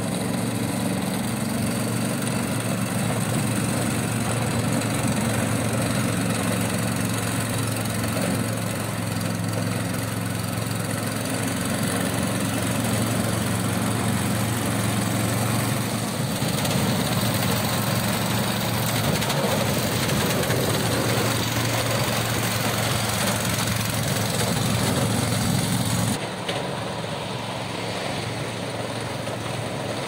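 Engine of a remote-control tracked orchard sprayer running steadily as the machine drives along. About 26 seconds in, the sound changes suddenly and becomes a little quieter.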